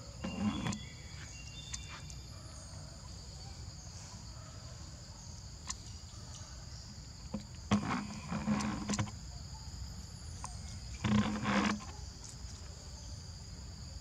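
Steady high insect chorus in two buzzing bands, with a few short, louder scuffing noises about half a second in, around eight seconds and around eleven seconds.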